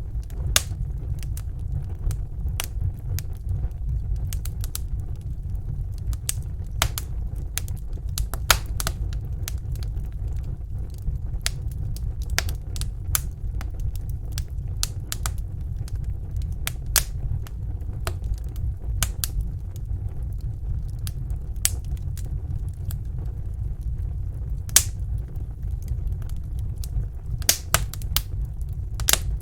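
Campfire burning, the wood crackling and popping in irregular sharp snaps over a steady low rumble.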